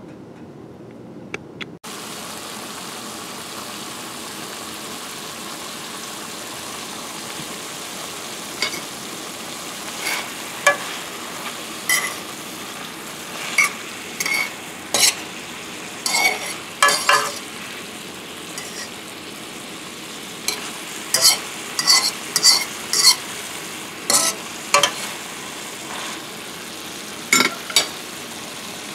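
Fish fillet with sliced onions and peppers sizzling in escabeche sauce in a stainless steel skillet, starting suddenly about two seconds in. From about a third of the way through, a utensil clinks and scrapes against the pan in many short strokes as the vegetables are stirred.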